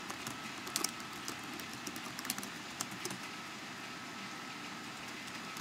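Sparse keystrokes on a computer keyboard: a handful of scattered clicks over a steady low hiss.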